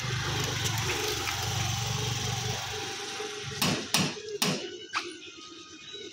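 Scooter engine running at low revs as the scooter is brought out and ridden off. About three and a half seconds in come four sharp knocks in quick succession, after which the engine drops away.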